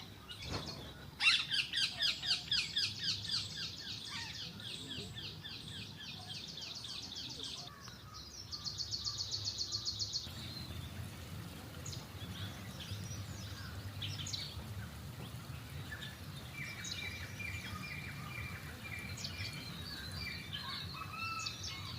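Birds calling. A loud, rapid series of sharp descending notes begins about a second in and fades over a few seconds. A fast, even trill follows around eight seconds in, and a short run of quick high pips comes later.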